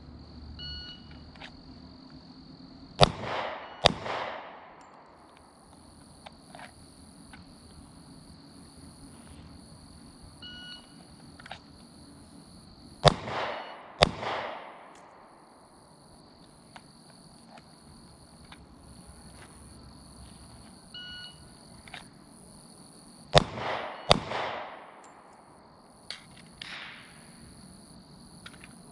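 Glock 27 .40 S&W pistol firing brass-cased rounds in three pairs of shots, the two shots in each pair about a second apart, each with a ringing echo. This is a test of whether the pistol still multi-fires. Insects keep up a steady high trill underneath.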